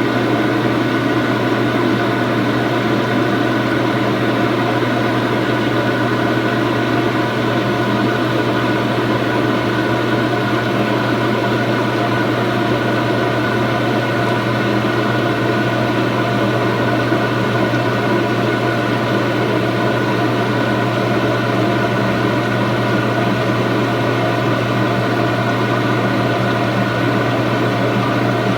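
Samsung washing machine running steadily: a low hum under an even rushing noise that holds unchanged throughout.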